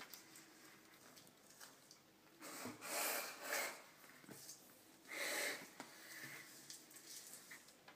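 Two male Gila monsters wrestling: scratchy rubbing and scraping with three louder rasping bursts, each under a second, about three, three and a half and five seconds in.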